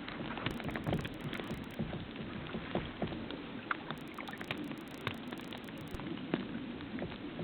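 Falling snow pattering: many small, irregular ticks and taps over a soft steady hiss.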